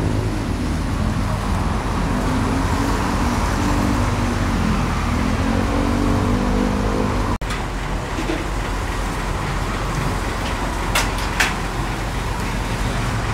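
Steady road-traffic and vehicle engine noise with a low hum, and an engine tone that slowly rises and falls in the first half. The sound changes abruptly about seven seconds in, and a few sharp clicks come near the end.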